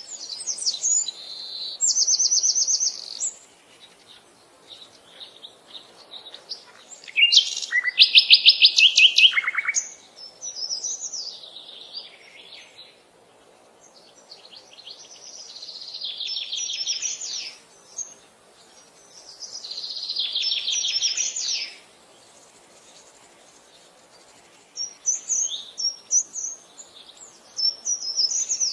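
Birds singing: repeated bursts of rapid, high trilled song separated by short pauses, the loudest and fastest trill about seven to ten seconds in, with scattered short chirps near the end.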